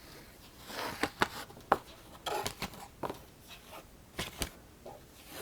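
Tarot cards being handled on a tabletop: scattered soft rustles and slides broken by a few sharp taps and clicks.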